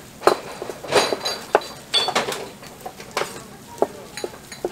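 Large kitchen knife chopping cooked pork on a plastic cutting board: a run of about eight sharp chops at an uneven pace, roughly two a second.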